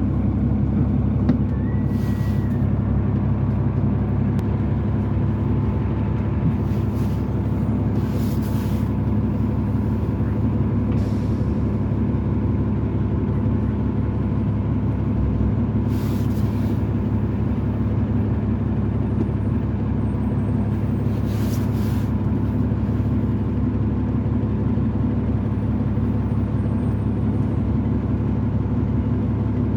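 Steady running of a 2005 New Flyer D40LF transit bus's Cummins ISL straight-six diesel and drivetrain, heard on board, with several short air hisses from the air brakes.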